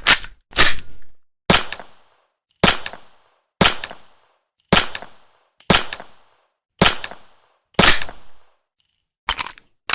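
Walter PPK pistol firing single shots, about nine in all at roughly one a second, each a sharp crack with a short fading tail. A couple of lighter, sharper cracks come close together near the end.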